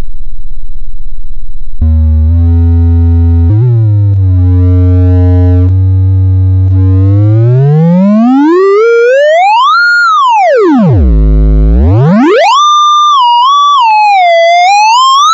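Synthesized tone from a Pure Data patch, its pitch set by the position of a Wacom tablet pen. It starts as a low buzz and holds a few low notes with small steps. About seven seconds in it slides steadily up to a high pitch, swoops down to a deep bass and back up, then wavers up and down near the end.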